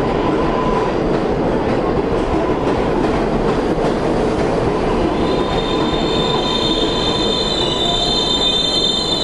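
R188 subway train running into an elevated station along the platform, a loud steady rumble of wheels on rail. About five seconds in, several high-pitched squealing tones set in as the train slows to stop.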